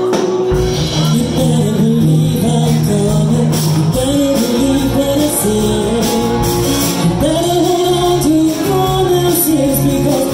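Live band playing with electric guitar and drum kit, cymbals ringing. A woman's lead vocal comes in about four seconds in and carries the melody through the rest.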